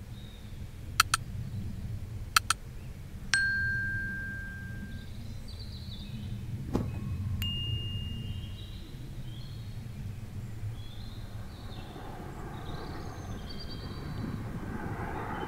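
Two pairs of sharp clicks, then a bell-like ding, a single knock and a second, higher ding: sound effects of an animated subscribe overlay. They play over a low steady rumble with birds chirping. From about twelve seconds in, the jet-engine noise of an approaching Boeing 737-400 freighter on landing approach starts to rise.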